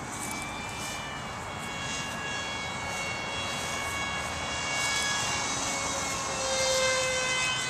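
Electric RC plane in flight: its Grayson Hobby Super Sonic v2 motor and 6x4 propeller whine steadily, louder about five seconds in and again near the end as it comes closer.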